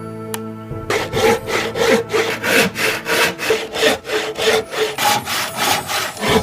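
Rhythmic back-and-forth rasping strokes, about three a second, starting just under a second in, like a saw or scraper working something by hand.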